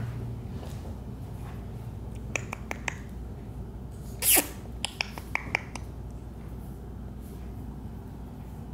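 Shih Tzu puppy at play: a few light clicks, then one short high yip that falls in pitch about four seconds in, followed by a few more clicks.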